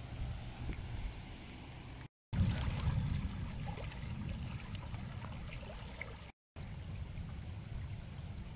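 Muddy flash-flood water from fresh rain rushing and gurgling over rocks in a wadi stream, a steady watery rush with a low rumble under it. It breaks off twice for a moment of silence, about two seconds in and again about six seconds in.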